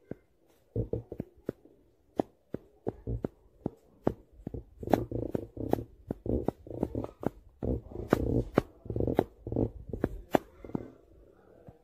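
Irregular sharp clicks and taps, several a second, over low, muffled rumbling sounds that grow busier in the second half.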